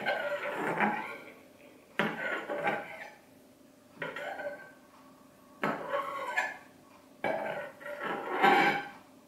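A metal spoon scrapes and clinks against a porcelain bowl as raw eggs are pushed apart in their sauce. It comes in about five short bouts with quiet gaps between them, and the loudest is near the end.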